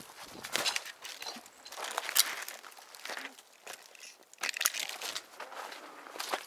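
Irregular crunching and rustling of footsteps through dry leaves and brush, with a few sharp snaps and clicks.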